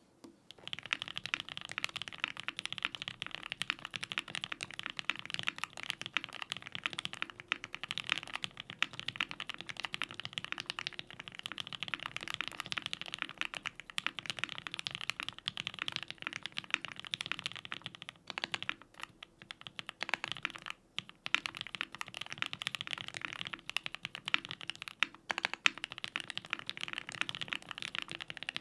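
Fast continuous typing on a custom mechanical keyboard with lubed Gateron Oil King linear switches in a polycarbonate plate, foam-dampened, with GMK keycaps: dense, deep-toned key clacks, breaking off briefly a few times in the second half.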